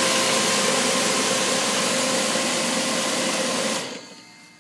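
Refrigerant recovery unit running steadily with a hum, powered at 120 volts through an adapter cord from one leg of a 220-volt supply; it shuts off near the end and the sound dies away quickly.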